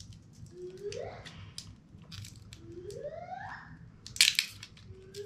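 Plastic wrapping and seal of a small L.O.L. Surprise toy capsule crinkling and crackling as it is picked at and peeled by hand, with scattered clicks and a louder crackling tear about four seconds in. Two short rising squeaks sound about a second and three seconds in.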